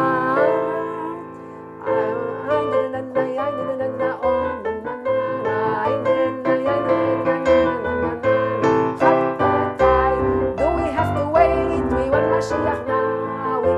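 Keyboard playing a lively tune in quick notes, with a brief quieter dip about a second in.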